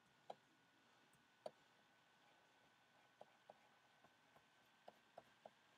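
Near silence with faint, sharp clicks at uneven intervals, about nine in all, over a faint steady high tone.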